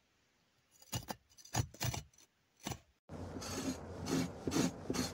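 Metal-edged pet hair remover scraped across fabric and carpet pile, a raspy rub with each stroke. A few separate strokes come first, then a steady run of about two strokes a second over a low hum.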